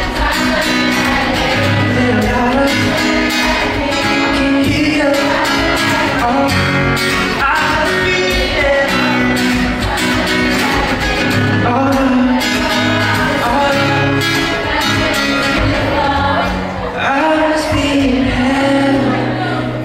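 Live pop band playing with sung vocals over a steady bass line and drums.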